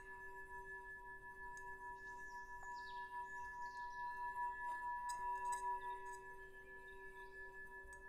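Soft ambient film score: a steady drone of a few held ringing tones, like a singing bowl. Faint high chirps come and go about two to four seconds in.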